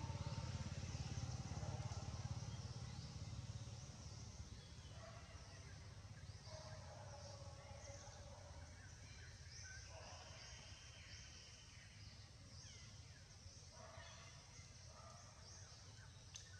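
Faint outdoor ambience: a low engine-like rumble fades away over the first four seconds, leaving a quiet background with scattered short, high chirping calls.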